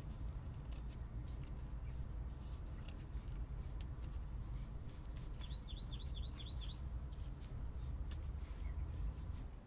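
A small bird gives a quick run of about six chirps a little past the middle. Under it are soft crackles and rustles from plant-fibre cordage and hair being twisted into yarn by hand, over a steady low rumble.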